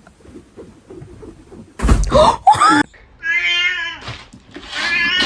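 A cat meowing: a loud, harsh cry about two seconds in, then a long, steady meow about a second later.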